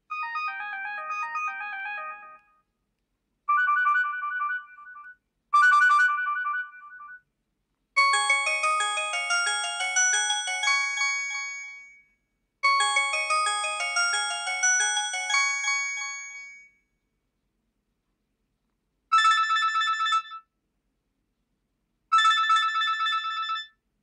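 LG KP215 clamshell phone's speaker playing its built-in ringtones one after another: about seven short electronic melodies, each cut off abruptly when the next one is selected, with brief silences between them.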